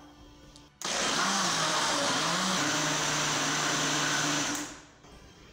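Countertop electric blender switched on, starting abruptly about a second in and running steadily for almost four seconds as it purées kale, avocado, apple and water into a thick green juice, then stopping. Its motor hum wavers in pitch at first, then holds steady.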